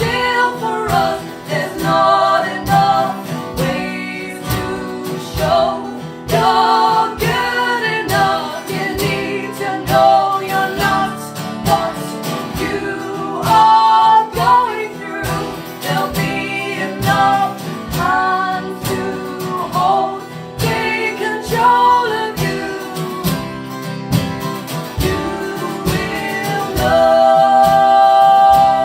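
Live folk-pop song: acoustic guitars strummed under female voices singing, ending on a long held note near the end.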